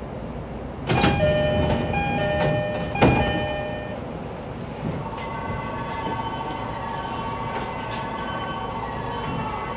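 E531 series commuter train stopped at a station with its doors opening: a sudden burst about a second in, with an electronic chime sounding three times, then steady electronic tones from about five seconds in over the train's background hum.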